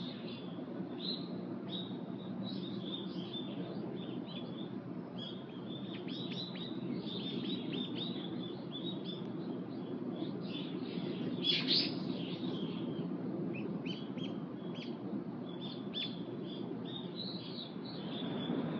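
Small birds chirping and calling in quick, repeated short notes throughout, with one louder call near the middle, over a steady low background hum.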